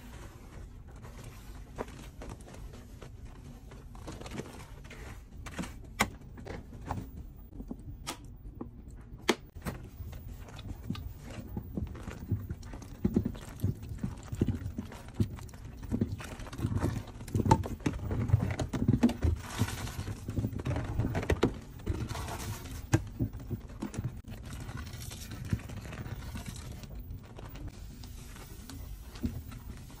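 Top-loading washing machine with wet laundry: a low steady rumble with many irregular thuds and knocks, busiest in the middle, mixed with water sloshing.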